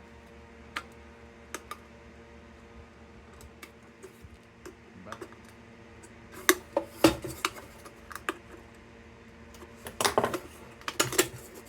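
Small metal parts being handled: scattered clicks and light clinks, with two bursts of clattering, one about halfway through and one near the end.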